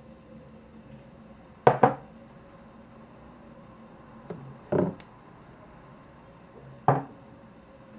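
Heavy glass Pilot Iroshizuku ink bottles set down one at a time on a wooden desktop, giving separate knocks: a quick double knock about two seconds in, a light knock and another double knock just before the five-second mark, and a single knock near the end.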